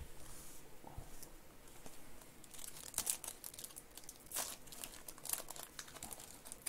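A foil Donruss Optic basketball card pack being torn open by hand. It crinkles and tears in a run of short, sharp crackles that start about two and a half seconds in.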